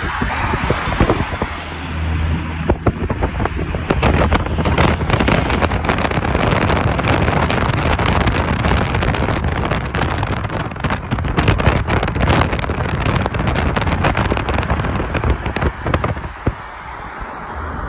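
Wind buffeting the microphone of a phone filmed from a moving car, over the low drone of car engines and tyre noise, with rapid crackling gusts through the middle.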